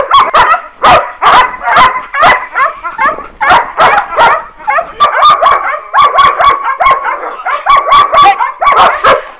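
Working-line German Shepherd puppies barking and yipping excitedly in tug play, a rapid run of short, high barks, about two a second.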